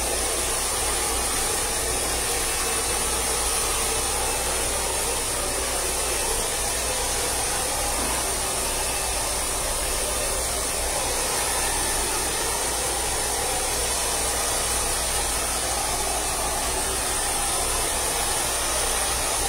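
Handheld hair dryer blowing steadily, with a constant airy rush and a thin high whine, as it dries short hair.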